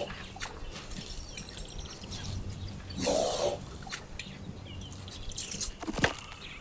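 African elephant foraging at close range: a breathy whoosh about three seconds in, scattered small wet clicks, and a single sharp click near the end.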